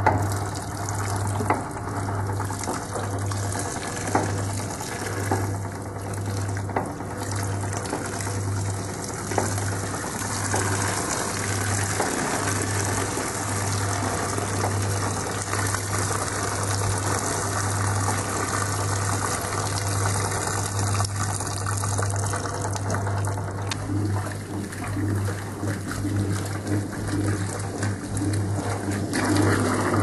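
Servis Superheat washer's wringer rollers turning over a steady low electric-motor hum, with water squeezed from the washing streaming and splashing back into the tub. Near the end it gives way to the louder churn of the agitator washing the load.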